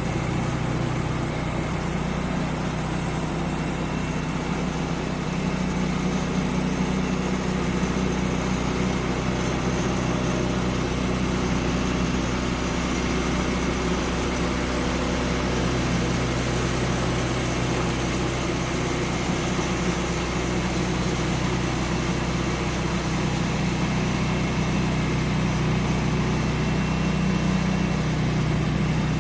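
Sawmill engine running steadily at an even pitch.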